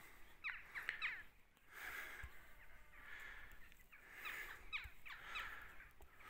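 Crows cawing faintly, several short calls spread through the moment.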